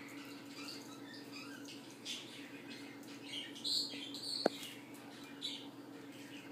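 African grey parrot nibbling and chewing watermelon with its beak: scattered soft, wet, crunchy bites, with a brief louder burst just before four seconds in and a single sharp click about half a second later.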